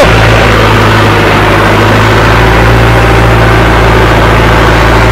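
Mahindra Arjun Novo 605 tractor's 57 hp turbo diesel engine, with a modified fuel pump, running steadily while pulling a tined cultivator through tilled soil.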